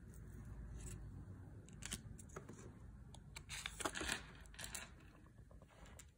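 Trading cards handled on a wooden table: soft sliding and light clicks and taps as cards are picked off the stack and laid down, with a quick cluster of clicks a little past the middle.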